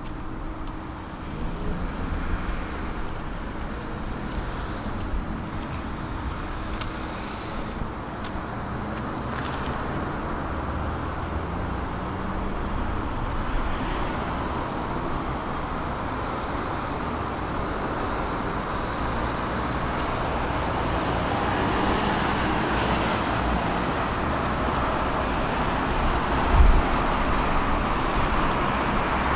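Road traffic noise, a steady hum of passing vehicles that grows gradually louder, with one short low thump near the end.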